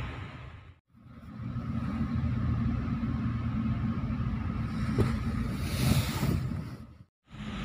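Steady low rumble of a bus's diesel engine heard from inside the cabin, with a brief hiss about six seconds in. The sound drops out briefly twice.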